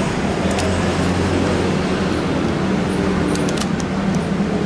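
Steady road traffic noise with a low engine hum, and a few light clicks about half a second in and again a cluster between three and four seconds in.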